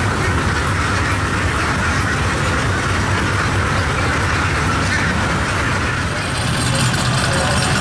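Boat engine running steadily with a constant low drone.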